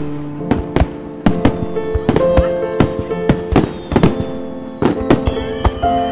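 Aerial fireworks shells bursting in quick, irregular bangs and crackles, over background music with sustained notes.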